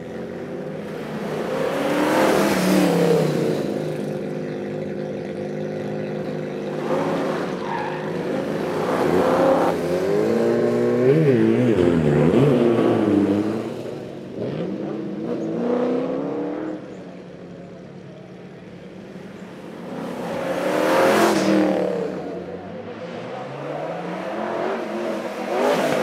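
1970 Ford Capri Perana's V8 engine driven hard through a sprint course, its pitch repeatedly rising under acceleration and dropping through gear changes and braking. It swells loudly as the car passes close, about two seconds in, around ten to thirteen seconds in, and again about twenty-one seconds in.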